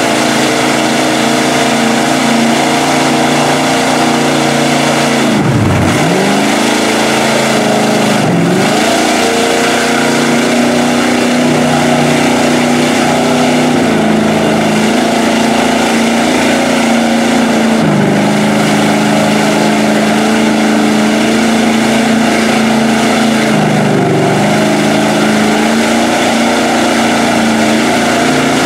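Lifted square-body pickup on tractor tires running wide open through a mud bog pit, its engine held at high revs while the tires churn and fling mud. The engine pitch drops sharply about six seconds in and dips several more times before climbing back.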